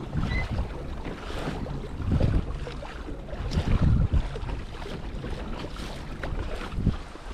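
Wind buffeting the action camera's microphone in uneven gusts, over a steady wash of sea water against a plastic fishing kayak.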